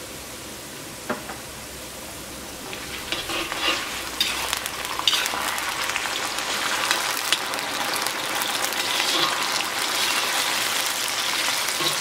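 Diced potatoes deep-frying in hot oil in a wok: a steady low sizzle, then about three seconds in salted water is sprinkled into the oil and the sizzle swells into a loud, dense crackle like rain falling. A slotted spoon stirs through the pieces.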